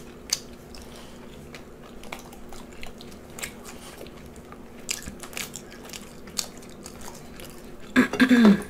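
Close-up chewing of the crunchy fried breading of a zucchini fry, with scattered small crunches and mouth clicks. Near the end comes a short, loud vocal sound.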